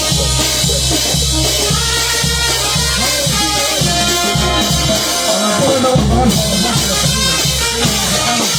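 Band music in an instrumental passage between sung lines, with drum kit and a steady pulsing bass beat under held melody notes. The bass drops out briefly about five seconds in.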